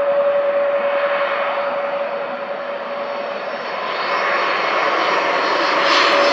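Jet airliner's engines running as it passes, growing louder over the last couple of seconds and then cutting off suddenly. A steady hum-like tone sounds underneath.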